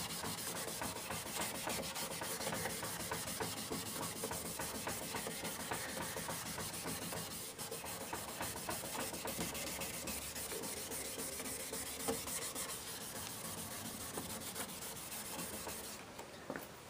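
Folded 1500-grit sandpaper rubbed rapidly back and forth by hand over a plastic headlight lens, a steady scratching that sands off the lens's oxidation; it stops about sixteen seconds in.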